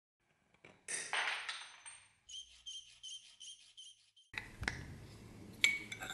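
Hand metalworking on brass fittings: a ringing metallic scrape, then a small file stroked over a brass strip clamped in a bench vise, about three strokes a second with a ringing note. After a cut come a few sharp metallic clicks.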